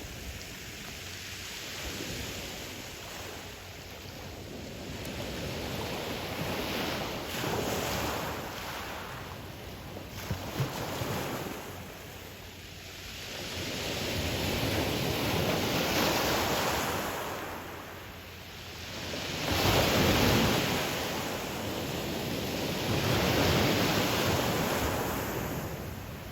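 Ocean surf breaking on a pebble beach: waves wash in one after another, the noise swelling and fading every few seconds, with the loudest surge about three-quarters of the way through.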